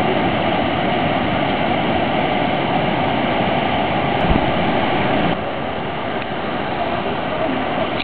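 The Ain river in flood, rushing over a weir and through churning whitewater: a loud, steady rush of water. A brief low thump comes just after four seconds in, and the rush drops slightly in level a little after five seconds.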